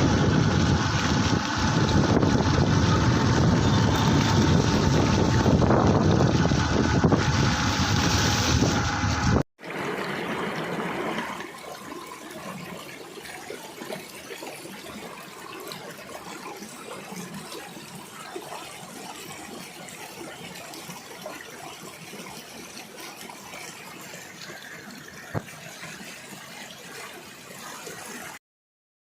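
Wind rumbling hard on the microphone for about nine seconds. Then, after a sudden cut, a quieter steady wash of flowing floodwater that stops abruptly near the end.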